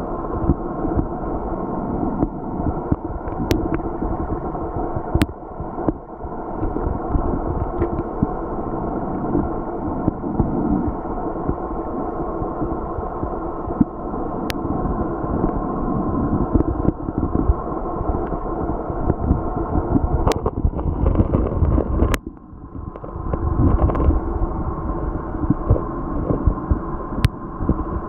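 Muffled underwater noise picked up by a submerged waterproof compact camera's built-in microphone: a steady low noise with faint steady tones running through it, and about six sharp clicks scattered through it. The sound drops briefly a little past the middle.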